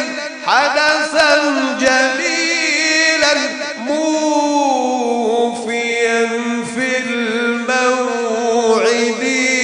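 A solo male Egyptian religious singer (mubtahil) chanting an ibtihal in praise of the Prophet Muhammad. The melismatic notes are long and held, with ornamented turns, and a slow falling phrase comes midway.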